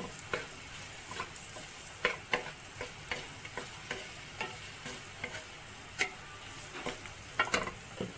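A wooden spatula stirring and pressing a spiced mashed-potato mixture in a metal pan, with irregular knocks and scrapes against the pan over a steady faint sizzle as the potatoes are sautéed.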